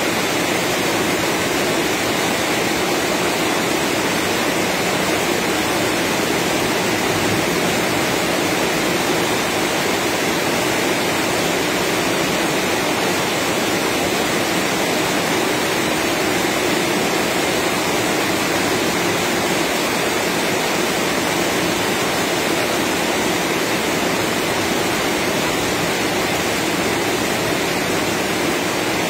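Rain falling steadily: a loud, even rush of noise that does not let up.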